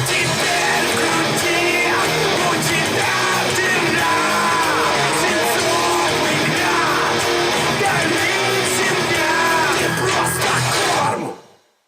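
A song with singing played through S90e loudspeakers fitted with Alphard midrange and tweeter drivers. The song fades out near the end.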